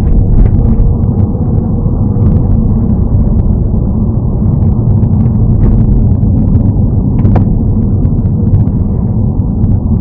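A car driving steadily, with constant low road and engine noise. One sharp click sounds about seven seconds in.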